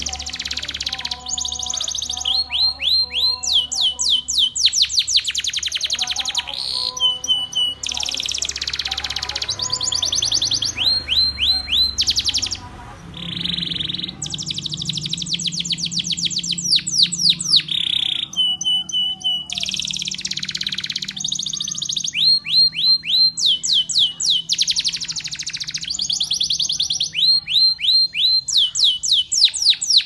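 Domestic canary singing a long, loud, continuous song. It moves from one rapid trill to the next, with phrases of quickly repeated notes and fast sweeping rolls that change every second or two, and barely pauses.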